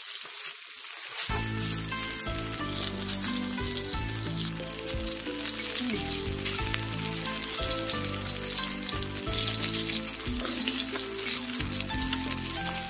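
Donkey intestines sizzling on a hot flat iron griddle, a steady crackling hiss, with background music coming in about a second in.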